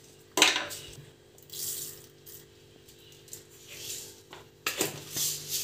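Mustard seeds hitting hot oil in a clay pot: a sudden sizzle about half a second in, then the oil hissing in waves, growing louder again near the end as the seeds start to fry.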